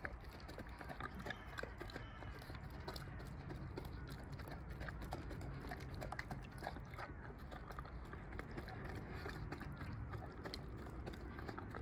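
Giant Central Asian Shepherd dog eating fast from a metal plate: quick, irregular chewing and smacking with many small clicks.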